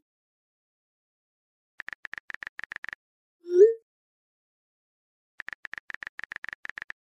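iPhone keyboard clicks as a text message is typed, a quick run of about a dozen taps, then the short rising swoosh of the iMessage send sound. A second run of keyboard clicks follows near the end.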